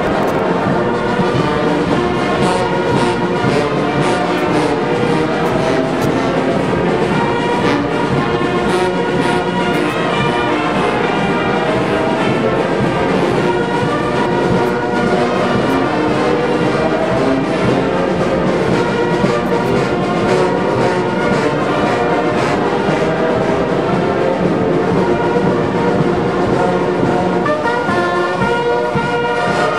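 Brass band playing, many instruments sounding held notes and full chords at a steady volume.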